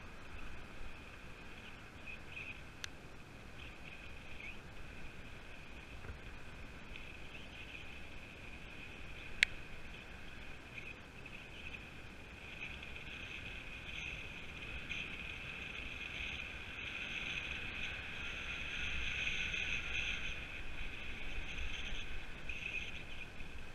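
Road bike rolling along a tarmac path: a steady high whir from the bike and a low rumble, louder in the second half, with a sharp click about nine seconds in.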